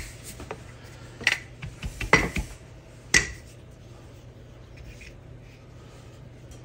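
A few sharp knocks and clatters from a wooden rolling pin being handled on a silicone baking mat over a granite counter, as puff pastry is rolled up onto the pin. About three knocks come in the first half, then only a low steady hum remains.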